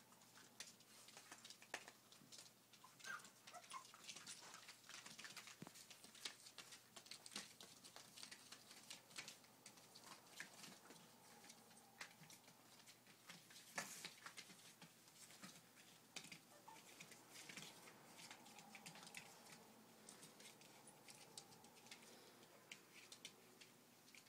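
Faint scratching and pattering of month-old poodle puppies' paws and claws on a plastic tarp as they play-fight, with a few short squeaks a few seconds in.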